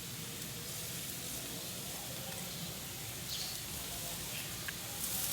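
Steady hiss of garden watering spray running, with a couple of brief soft noises in the middle and near the end.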